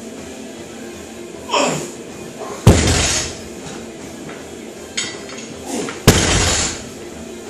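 A barbell loaded with bumper plates set down hard on a rubber-matted lifting platform twice, about three and a half seconds apart, between deadlift reps: each a sharp bang with a brief metallic rattle of bar and plates, the second preceded by a lighter knock.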